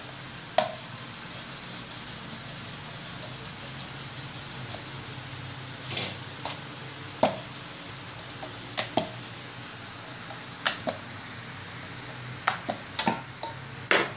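Chapati roasting on an iron tawa over a stove burner: a steady hiss with a low hum, broken by scattered sharp clicks and knocks, several close together near the end.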